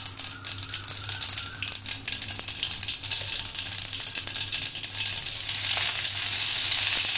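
Mustard seeds spluttering in hot oil in a kadhai, a quick run of small pops and crackles: the sign that the oil is hot enough for the tempering. About five and a half seconds in, a louder, steady sizzle takes over as curry leaves are dropped into the oil.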